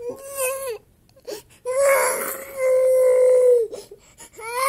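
Toddler crying in long wails: a short wail, then a loud held wail of about two seconds, and another starting near the end.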